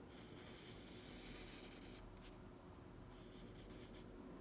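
Faint scratching of a drawing tool on paper: one long stroke of about two seconds, then a shorter stroke a second later.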